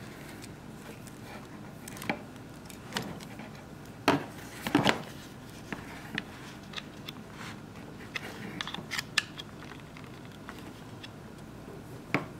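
Handling noise from a bundled power cord and a plastic charger adapter being lifted out of a cardboard box and turned over in the hands: scattered clicks, rubs and light knocks, the loudest a cluster about four to five seconds in and another just before the end.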